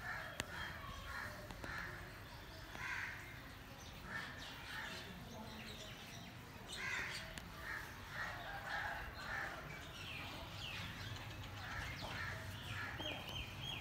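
Crows cawing, many short calls repeated throughout, over a faint steady low rumble, with a brief high steady whistle near the end.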